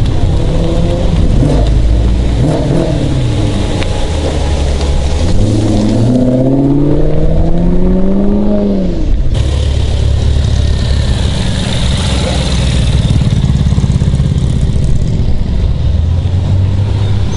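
Sports car engines running loud as cars drive off. From about five seconds in one engine accelerates, its pitch climbing steadily for a few seconds, and about nine seconds in the sound cuts abruptly to another engine running steadily.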